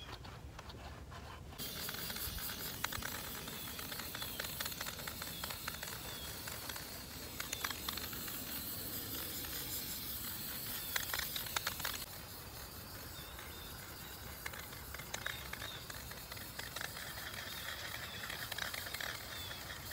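Aerosol spray-paint can hissing as paint is sprayed onto a mailbox post: a long steady spray that drops off suddenly about twelve seconds in, followed by quieter spraying.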